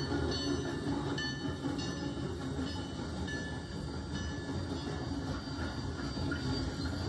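Narrow-gauge steam locomotive Denver & Rio Grande Western K-27 No. 464 working past close by, followed by the steady rumble and clatter of its wooden passenger coaches rolling by.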